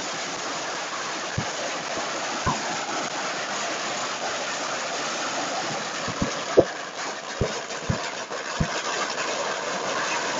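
A long pagara (red firecracker string) burning on pavement, its crackers going off so fast they merge into a steady crackle. A few louder single bangs stand out, more often in the second half.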